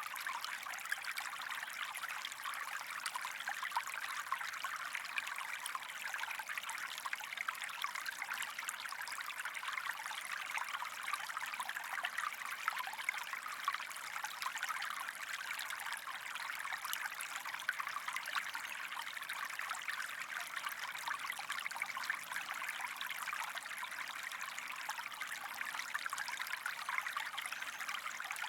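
A small stream running and trickling steadily, a continuous bright splashing and burbling of shallow flowing water.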